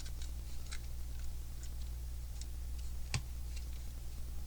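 Lego pieces being handled and pressed together, a handful of light plastic clicks with one sharper snap about three seconds in, over a low steady hum.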